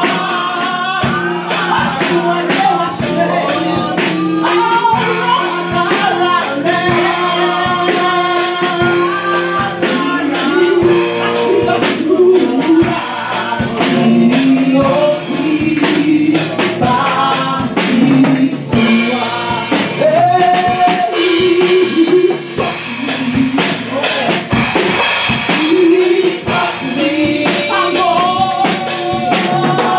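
Gospel worship song sung by a small group of women's voices into microphones, backed by a drum kit keeping a steady beat.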